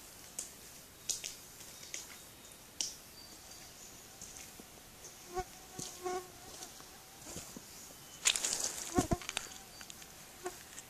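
A leather work boot stepping down into soft, wet mud about eight seconds in: a short burst of squelching and sucking that is the loudest sound here. Before it, only faint scattered ticks and clicks.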